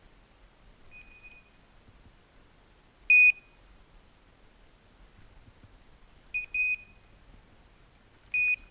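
Short, high electronic beeps on one pitch: a faint one about a second in, a loud one about three seconds in, a quick pair a little after six seconds, and another near the end.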